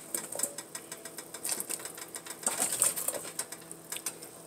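Large pot of chicken and vegetable soup simmering, bubbles popping in a quick, irregular crackle of small clicks over a faint steady hum.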